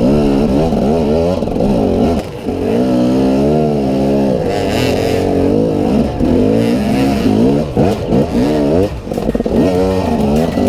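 KTM dirt bike engine revving up and easing off over and over under throttle on a rough trail. It drops briefly a couple of seconds in and blips in short, choppy bursts near the end.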